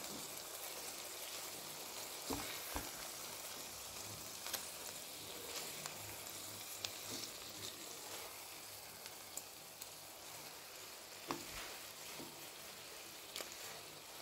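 Eggs in onion-tomato masala sizzling softly in a nonstick pan, with light crackles, a few soft taps and scrapes from a spatula working under them.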